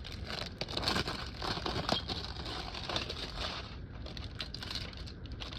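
Brittle old shrink-wrap plastic being pulled off a cardboard box, crinkling and crackling with many small crackles that thin out near the end.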